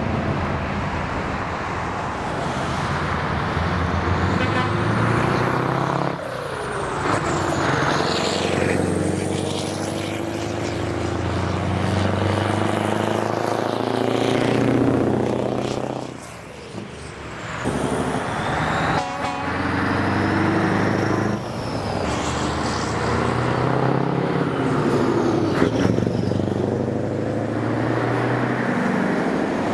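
Scania V8 diesel trucks driving past one after another, each engine swelling as it nears and fading as it goes by.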